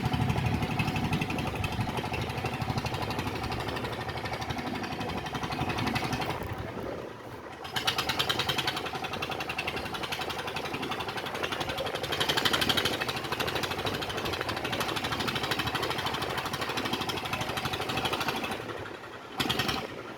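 Rapid, continuous mechanical hammering that stops briefly about seven seconds in and again near the end.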